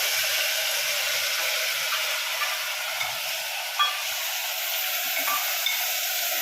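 Cluster beans sizzling steadily as they fry in hot tempering oil in an open pressure cooker, with one light knock a little before the middle.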